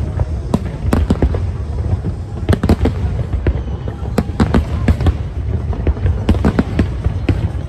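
Large aerial fireworks display going off: a fast, irregular string of sharp bangs and cracks, several a second, over a steady low background of booming.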